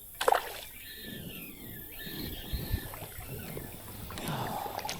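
Water splashing and sloshing around a hooked smallmouth bass being fought in, with a sharp splash about a quarter second in.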